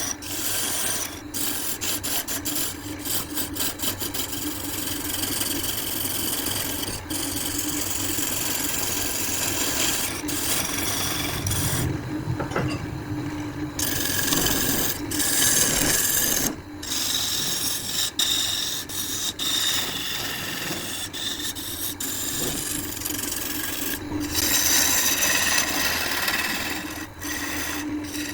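Wood lathe running while a tool rubs and scrapes against the spinning wood, a steady rasping hiss over the lathe's hum. The sound breaks off abruptly a few times.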